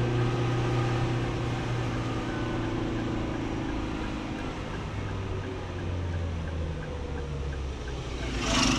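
Car engine running at low road speed, heard from inside the cabin with steady tyre and road noise; the engine note drops lower about five seconds in as the car slows. A brief hiss near the end is the loudest moment.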